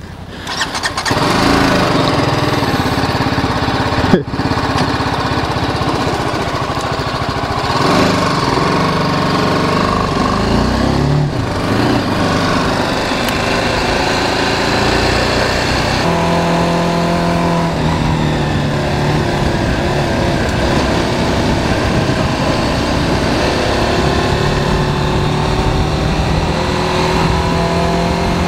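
BMW G 310 GS single-cylinder motorcycle engine pulling away about a second in, its pitch rising through the gears, then running steadily at cruising speed under a constant rush of wind and road noise. There is a single sharp knock about four seconds in.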